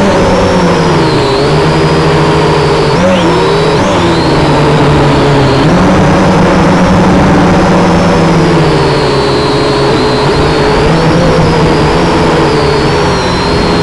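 Kaiser Baas Alpha drone's electric motors and propellers whining, heard close up through its onboard camera. The pitch keeps rising and falling as the motors speed up and slow down to hold and steer the drone.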